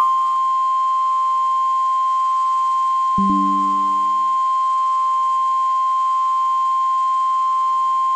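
NOAA Weather Radio warning alarm tone: one steady, loud 1050 Hz tone that signals a new warning is about to be read. About three seconds in, a short low computer chime, a Windows device-connected notification, sounds over it.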